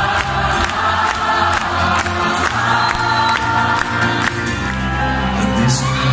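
Folk-rock band playing live through a concert PA, with sung vocals and a steady drum beat of about two hits a second, and the crowd singing along.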